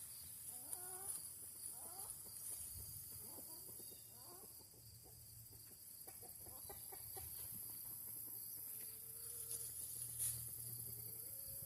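Chickens clucking: a run of short calls, a few longer held notes near the end, over a steady high drone of insects.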